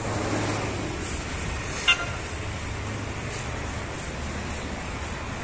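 Long-handled bristle brush scrubbing the steel shell of a tanker over a steady low machine hum, with one short, sharp high-pitched sound about two seconds in, the loudest thing heard.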